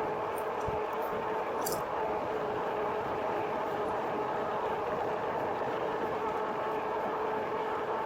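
Steady running noise of a RadRover electric fat-tire bike under way at constant speed. A hum of several steady tones sits over an even rush of wind noise on the microphone.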